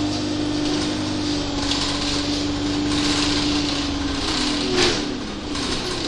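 Inside an Alexander Dennis Enviro200 single-deck bus on the move: its Cummins diesel engine runs with a steady whine over road noise. The note fades and drops about four seconds in, and a single short knock comes just before five seconds.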